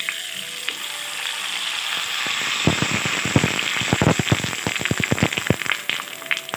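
Sabudana and tomato papad frying in hot oil: a steady sizzle as it goes in, turning to rapid crackling and popping from about two and a half seconds in as the papad puffs up.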